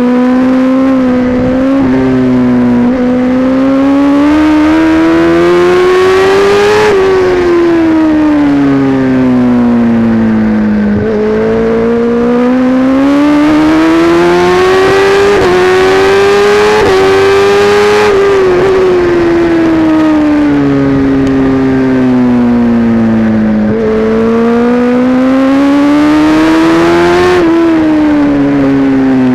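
Kawasaki Ninja ZX-10R inline-four engine heard from onboard at race pace. Its note climbs steadily for several seconds, then falls away, three times over.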